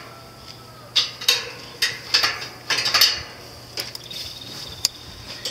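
Steel meat hooks and a wire hook tool clinking against the hanging rods and rim of a barrel smoker as a turkey is hung inside: a string of light, irregular metal clinks and taps.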